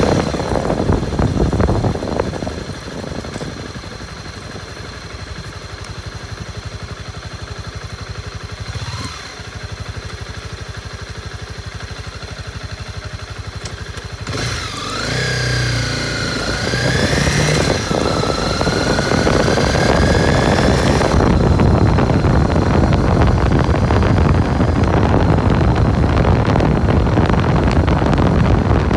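Honda CB250R's single-cylinder engine heard from the saddle while riding. The revs rise at first, then it runs quieter and steady. About halfway through the revs climb and dip again as it accelerates through the gears, and in the last third wind rushing over the microphone covers it.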